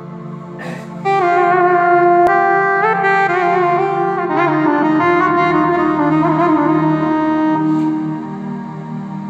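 Yamaha arranger keyboard played by hand: an Oriental-style lead melody of held notes with pitch slides and wavering ornaments over a steady low drone. The melody comes in about a second in.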